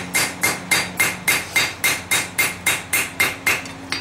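Hammer blows on a hot stainless steel billet on an anvil, a steady run of about four strikes a second, each with a short ring. The steel is being consolidated and worked so that divots and folds don't form.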